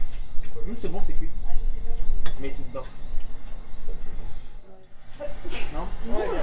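Crickets chirping in one steady, high-pitched, unbroken trill, with short bits of people's voices over it.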